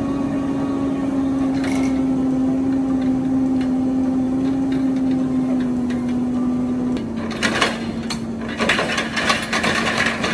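Digger derrick truck's engine running steadily to drive the hydraulic earth auger, its pitch stepping down slightly about seven seconds in. Over the last few seconds, loose soil is flung off the spinning auger and spatters down with a dense crackling.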